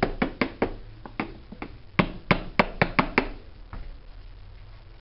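Accordion bass buttons pressed in quick succession without the bellows moving, the mechanism giving a rapid, uneven series of sharp clicks that stops a little before the end. This is a check on whether a sticking bass button now returns freely.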